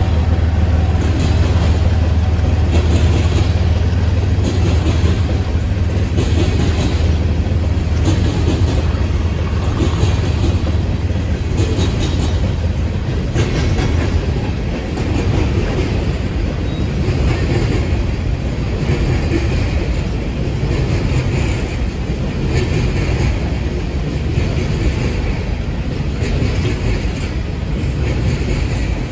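Freight train of coal hopper cars rolling past, the wheels knocking over rail joints in a repeated clickety-clack over a steady rumble. The low drone of the diesel locomotives heading it fades away over the first several seconds.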